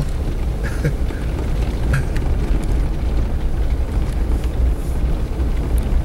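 Suzuki Jimny driving along a dirt track, heard from inside the cab: a steady low rumble of engine and tyres, with a few short knocks and rattles from the rough road surface.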